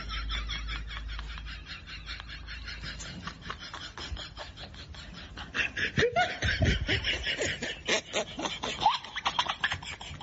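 Laughter in quick breathy pulses, growing louder with voiced laughs about six seconds in.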